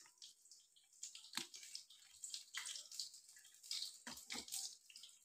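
Fried bhallay (gram-flour fritters) being dropped one by one into a bowl of water to soak: faint, irregular small splashes and drips.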